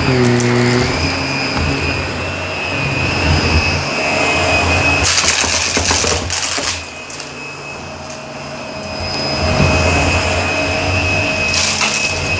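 Shark vacuum cleaner running over carpet with a steady high motor whine. It has bursts of crunchy rattling as debris is sucked up, one about five seconds in and another near the end.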